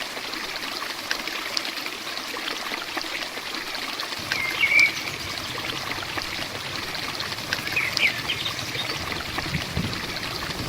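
Steady heavy rainfall, an even hiss of water with many fine drop ticks. A bird chirps briefly about halfway through and again later.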